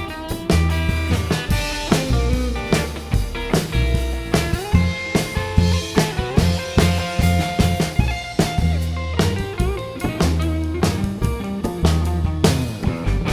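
Live band playing an instrumental break: guitar over bass and a drum kit keeping a steady beat, with no singing.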